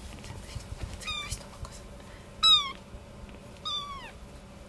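A young kitten mewing three times, about a second apart, in thin high-pitched calls. The middle mew is the loudest and the last one falls in pitch.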